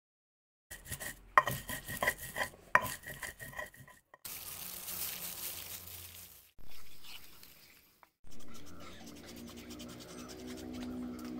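A cleaver chopping raw pork on a wooden cutting board, a quick run of sharp knocks. Then a plastic-gloved hand kneads and stirs cubed pork in a sticky chili marinade in a bowl, with the glove rustling and squishing.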